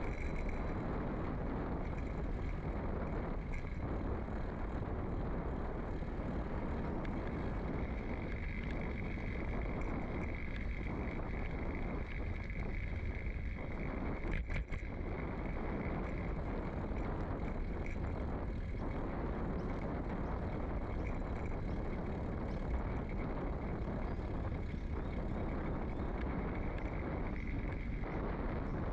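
Bicycle rolling along an asphalt path, heard through a bike-mounted microphone: a steady low rumble of tyres on the path with some wind noise on the microphone.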